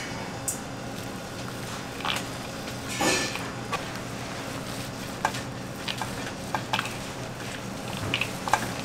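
Raw ground meat and eggs being squeezed and turned by gloved hands in a stainless steel bowl: scattered wet squelches and slaps, the loudest about three seconds in, over a steady low hum.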